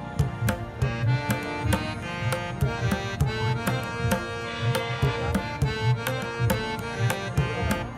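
Music with a steady percussion beat under a melody.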